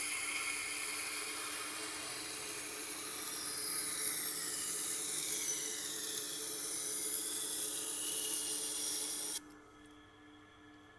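Steel knife blade ground against a spinning coarse sharpening wheel, a steady hissing grind that stops abruptly about nine seconds in, with the machine's motor humming on beneath it. This is the coarse reprofiling pass that raises a burr.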